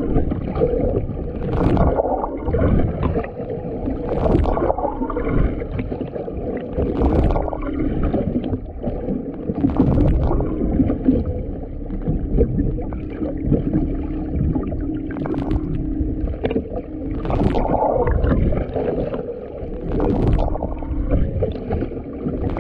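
Underwater sound beneath a boat's hull: a steady hum from the boat carried through the water, with water sloshing and gurgling against the microphone and short splashy bursts every few seconds.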